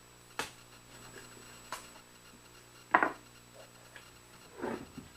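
Handling sounds while paper tape is applied across a glued cherry panel joint: a few sharp clicks and knocks, the loudest about three seconds in, then a brief rubbing near the end.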